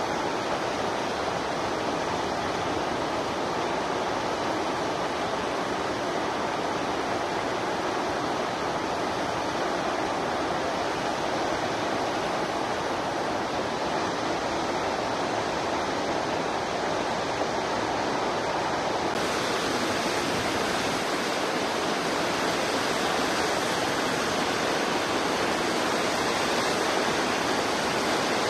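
Steady rushing of running water, an even hiss with no distinct events, brightening a little about two-thirds of the way through.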